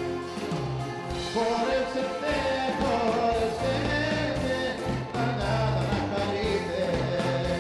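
Live Greek band music: a bouzouki plays over drums and a steady bass line, with a man singing. The music grows louder about a second and a half in.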